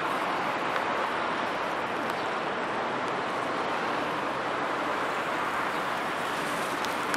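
Hidromek HMK 102B backhoe loader's diesel engine running at idle, a steady, unbroken noise.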